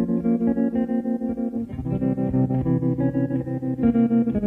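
Instrumental music: an electric guitar with tremolo effect plays sustained chords that pulse rapidly and evenly in volume over a bass line, shifting to a lower chord a little under two seconds in.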